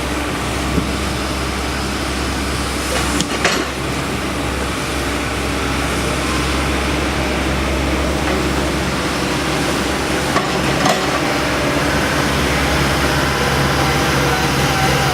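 Excavator engine and hydraulics running steadily as the NPK DG-30 sorting grab handles large boulders, the engine note rising a little about six seconds in. A few sharp knocks of rock against rock or the steel grab come about three seconds in and again near eleven seconds.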